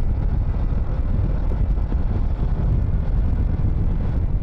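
Wind buffeting the microphone while riding a Bajaj Pulsar NS200 motorcycle, with its single-cylinder engine running underneath.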